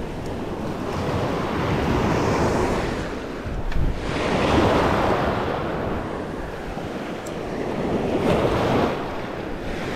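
Small surf waves washing in around the legs, swelling and fading about three times, with wind buffeting the microphone. A brief click about four seconds in.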